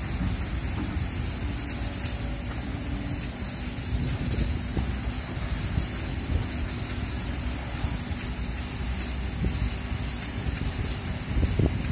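Kobelco SK200 excavator's diesel engine running steadily as the machine digs and swings its upper body round, with wind buffeting the microphone.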